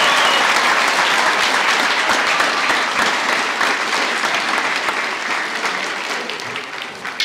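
Crowd applauding, a dense patter of many hands clapping that fades away near the end.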